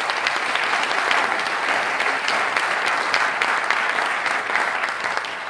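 Audience applauding: many hands clapping steadily, easing off near the end.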